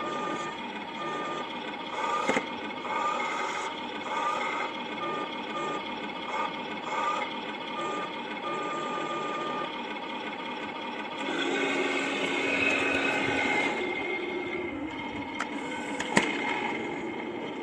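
Electric drive motors and 3D-printed gearbox of a 1/10-scale RC tank running, with a high whine that cuts in and out repeatedly as the throttle is worked. About eleven seconds in the running grows louder for a few seconds, and a sharp click comes near the end.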